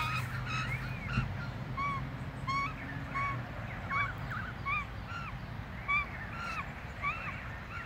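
Australian magpies calling while mating: a short arched call repeated evenly, about three every two seconds, with higher warbling notes between.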